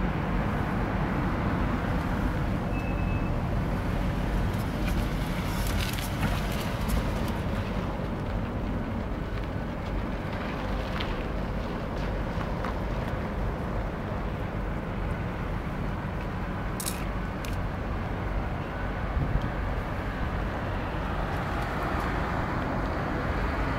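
Steady road and engine noise of a car heard from inside the moving cabin, a low even rumble, with a few faint clicks partway through.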